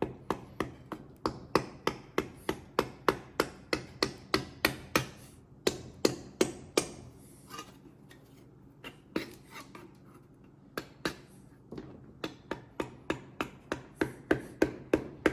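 A hand tool striking a metal engine surface in quick, sharp knocks, about three a second, with a couple of short pauses, as old gasket material is chipped off the Kohler K301's gasket surface.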